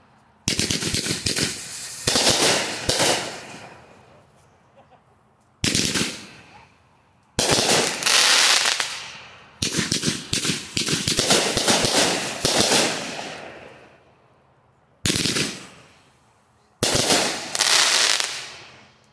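Consumer fireworks cake firing: a series of sudden loud bangs, some in rapid strings of shots, each dying away in a crackling tail, with short pauses between volleys.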